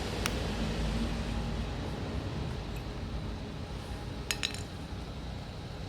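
A car's push-button engine start switch being taken apart by hand: small plastic and metal clicks and clinks, one sharp click at the start and a quick run of clicks a little after four seconds in, over a low steady background hum.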